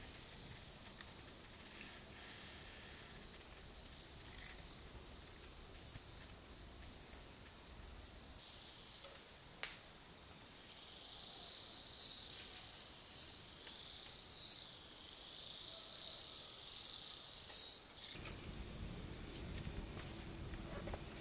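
Forest insects calling in a steady high chirr; from about eight seconds in, a louder pulsing call swells and fades roughly once a second. Near the end the insect sound cuts off abruptly, leaving a low steady rumble.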